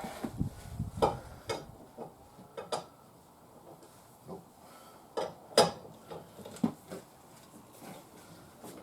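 Irregular metallic clinks and knocks of hand tools on a UTV wheel, with one louder clank a little past the middle.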